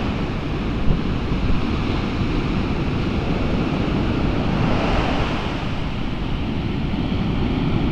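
Ocean surf breaking and washing up a sand beach in a steady rush, with wind buffeting the microphone.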